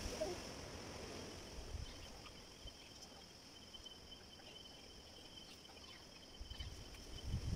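Night insects chirring steadily in a high band, with a thin, steady whistle-like tone from another insect for a few seconds in the middle. Low thumps and rumbles come briefly near the start and again toward the end.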